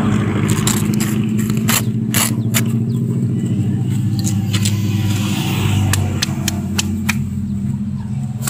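Honeybees buzzing in a steady, dense drone around their exposed nest, with scattered sharp clicks.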